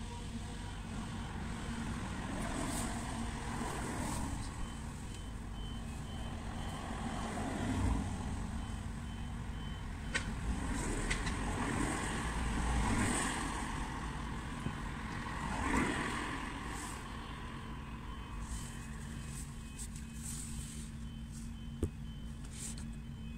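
Road traffic and works machinery rumbling, with louder passes about 8, 13 and 16 seconds in. Behind it a high electronic beep repeats steadily, the sound of a reversing alarm on works plant.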